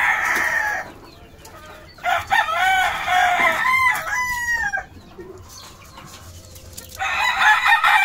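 Gamecock roosters crowing in three long calls: one trails off about a second in, a second runs from about two to five seconds in, and a third starts near the end.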